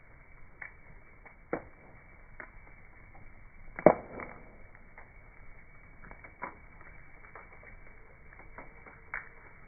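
Bonfire crackling: scattered small pops and clicks over a low hiss, with one sharp loud pop about four seconds in. The sound is dull, with nothing high in it, as on slowed slow-motion footage.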